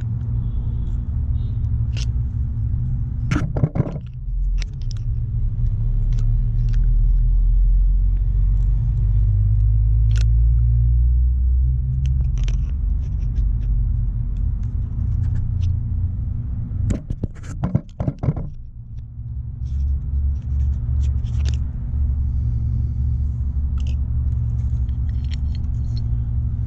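Screwdriver scraping and clicking against the old brake pads as it levers them to push the motorcycle caliper pistons back, in short bouts with a cluster about four seconds in and another near eighteen seconds. A steady low rumble runs under it all.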